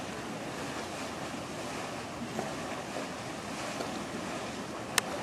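Steady outdoor noise of wind buffeting the microphone and marina water, with one sharp click near the end.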